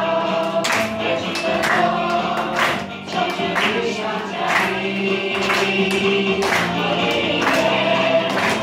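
A group singing a Mandarin worship song in unison over music with a steady beat about once a second.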